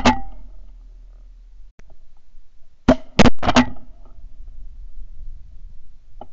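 Shotgun shots: one right at the start, then a quick string of three or four shots about three seconds in.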